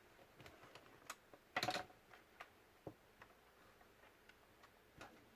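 Faint, irregular clicks and taps from a laptop being handled, with a brief clatter of several quick clicks about one and a half seconds in.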